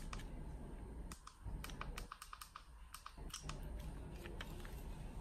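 A string of light, irregular clicks from buttons being pressed on a CADD PCA infusion pump's keypad while the institution code is entered.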